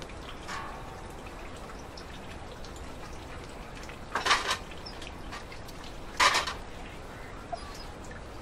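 Water poured from a plastic pitcher, splashing into a container twice, about two seconds apart.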